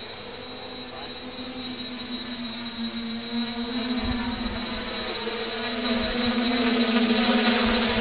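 Hexcopter's six electric motors and propellers humming steadily overhead, a pitched drone with a thin high whine above it, growing louder as the craft comes closer.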